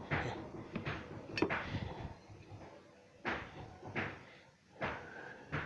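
Hands pushing soil back over a small replanted kencur rhizome: a string of short scuffs and pats, roughly one a second.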